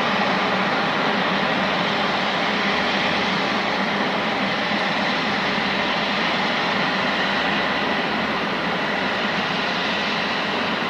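Jet engines of an Airbus A350 (Rolls-Royce Trent XWB turbofans) running: a steady rushing noise with a faint high whine, slowly getting quieter near the end.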